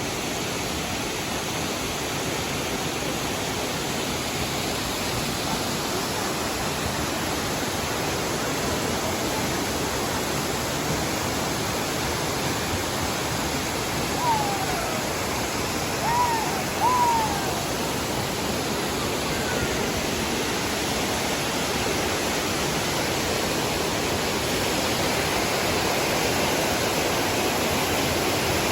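Waterfall's steady rush of falling water. About halfway through, three short high calls, each a quick rise and fall in pitch, sound over it.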